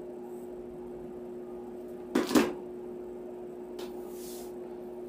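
Hot glue gun set down on the craft table with a double clunk about two seconds in, then a brief rustle as the wreath materials are handled, over a steady background hum.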